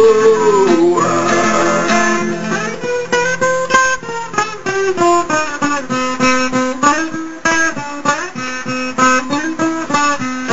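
Acoustic guitar picking a quick single-note instrumental melody in sertanejo raiz style. A held sung note wavers and falls away in the first second.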